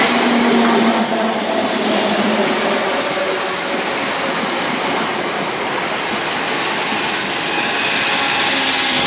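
London Overground Class 317 electric multiple unit running into the platform close by: a steady rumble and hiss of wheels on rail, with a few faint drawn-out tones from the running gear.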